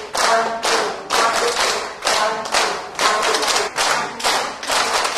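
A large group clapping hands in unison to the laughter yoga 1-2, 1-2-3 rhythm, about two claps a second, with voices chanting along on the beats.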